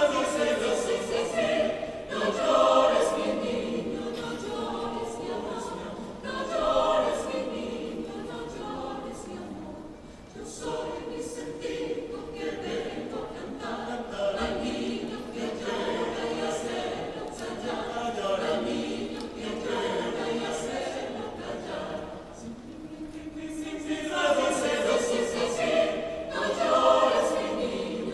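Vocal ensemble singing a cappella, in several phrases with short breaths between them and a louder swell near the end.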